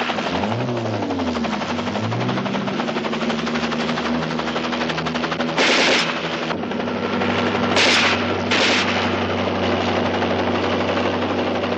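Film soundtrack of aircraft engines droning, with the pitch rising and falling as a plane passes in the first two seconds. Machine-gun fire follows: a one-second burst about halfway through, then two short bursts around eight seconds in.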